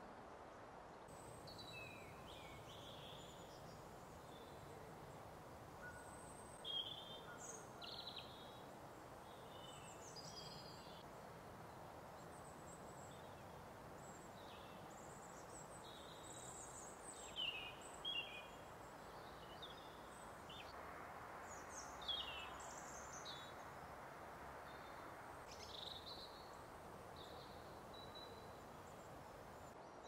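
Small songbirds calling and chirping: short, high calls and phrases come every second or so, loudest about 7 seconds in, twice around 17–18 seconds and again near 22 seconds, over a faint steady background hiss.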